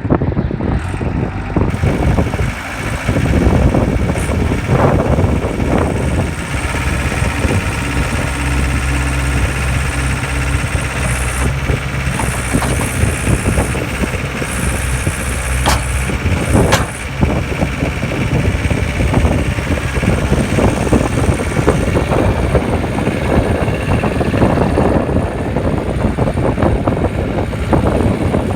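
A CAT 236 skid steer's four-cylinder CAT 3034 diesel engine running. Two sharp knocks come midway, about a second apart.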